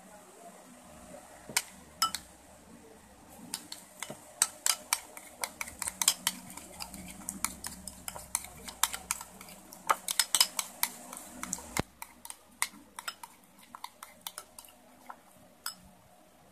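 Metal spoon stirring a glue and baby oil mixture in a glass bowl, repeatedly clinking and scraping against the glass. The taps come thick and fast through the middle and thin out near the end.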